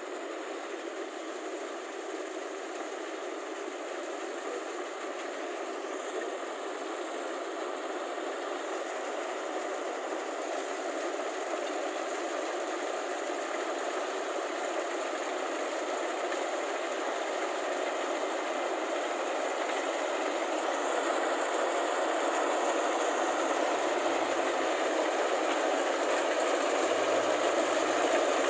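Rice combine harvester running, a steady mechanical clatter of its engine and drive that grows steadily louder as it draws nearer.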